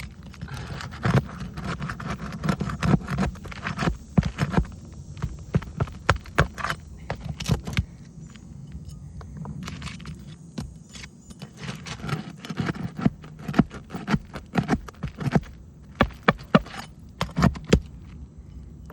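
Metal shingle-removal tool (a roof snake) scraping and clicking under asphalt roof shingles as they are pried up and their sealant strips are broken, in irregular sharp clicks and crackling scrapes.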